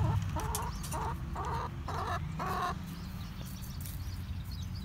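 Hens clucking, a quick run of about six short calls that stops about three seconds in.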